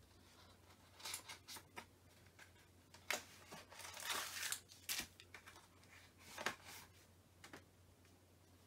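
Phone-case packaging being handled and opened by hand: faint scattered clicks and rustles, with a longer tearing crinkle about four seconds in.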